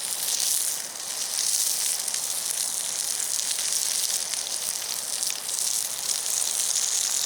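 Sausages sizzling as they fry over a campfire: a steady, high frying hiss with fine crackles.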